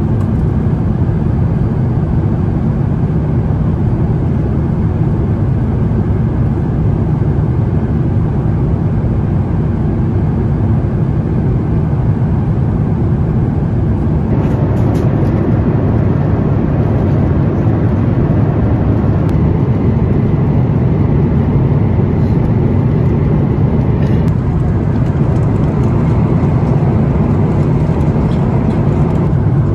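Steady in-flight cabin noise of an Airbus A350-900, its Rolls-Royce Trent XWB engines and the airflow over the fuselage making a loud, even rushing hum inside the economy cabin.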